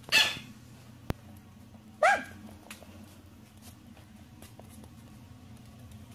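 Small white puppy giving two short, high-pitched yips about two seconds apart, with a single sharp click between them.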